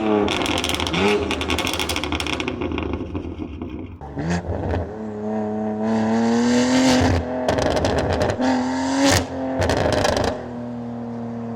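BMW M4's twin-turbo straight-six revved repeatedly through a titanium aftermarket exhaust, each rev blip followed by crackling pops as the revs fall, then settling to a steady idle near the end.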